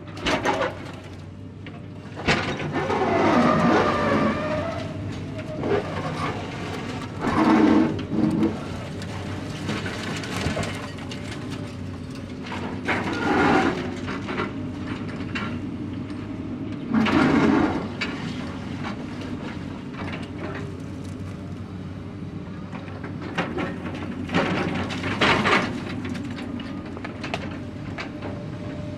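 Construction site ambience: a machine engine runs steadily, with irregular clanks, knocks and scrapes every few seconds.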